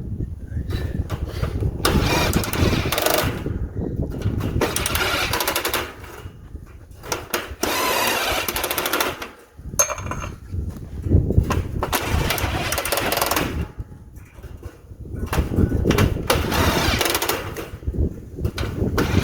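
Power drill running in about five bursts of one to three seconds each, working a bolt hole in metal to move it over.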